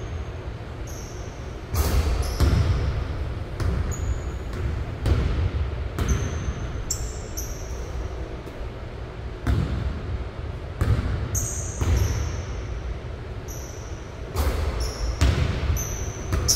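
Basketball bouncing on a hardwood gym floor, an irregular series of sharp thuds that echo around the large hall, with short high squeaks between them.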